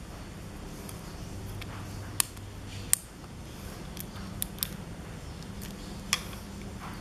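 Electric bike kit's handlebar push-button switch unit (cruise, reverse and regen brake buttons) clicking as its buttons are pressed: about five sharp clicks, over a steady low hum.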